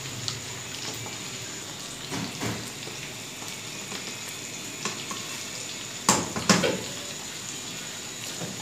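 Beef mince sizzling steadily in a frying pan over medium flame, with a few knocks of a metal slotted spoon against the pan as stuffed bitter gourds are set into it; the loudest two come close together about six seconds in.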